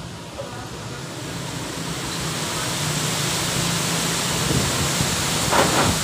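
Strong gusty wind rushing through the leaves of large trees, a steady rustling roar that builds in loudness. Heavier gusts come in near the end.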